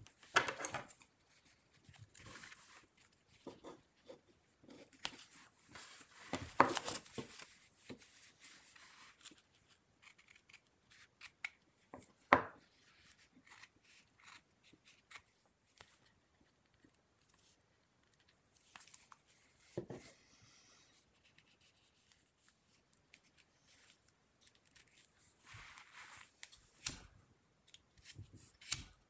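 Close-up handwork: a thin cord rustling as it is pulled and wrapped, scissors snipping the cord, and a few sharp clicks near the end as a lighter is struck.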